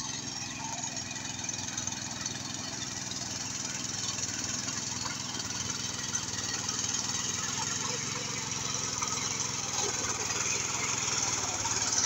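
Power weeder's small engine running steadily under load as its rotary tines till a flooded rice paddy.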